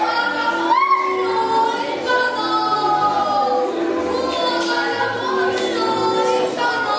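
A song with several voices singing together over music, holding and gliding between notes.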